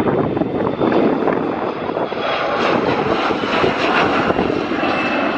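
Embraer E175 regional jet's two GE CF34-8E turbofans running at takeoff thrust as it lifts off and climbs away: a steady, loud jet noise with a thin high whine over it.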